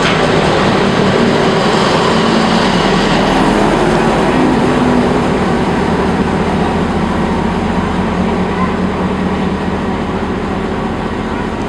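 Diesel locomotive engine running close by, a steady rumble with a held low hum, easing off a little toward the end. People's voices mix in.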